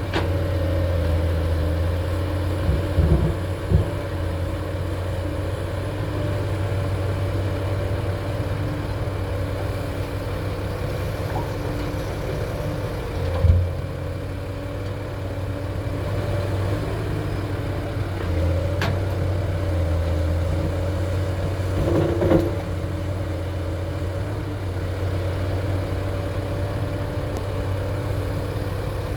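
Excavator's diesel engine running steadily, with a few short knocks over it.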